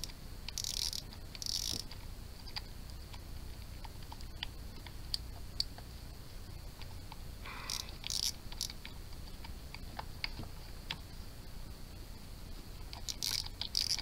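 Fingers unscrewing the front drag knob of an Okuma Avenger spinning reel make faint scattered clicks and a few short scratchy rubbing sounds.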